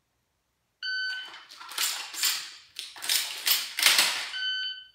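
A shot timer's start beep, then a quick run of sharp clacks as dummy shells are loaded from a belt caddy into a Benelli M2 shotgun's magazine tube. A second, par-time beep sounds about 3.5 seconds after the first, just as the last shells go in.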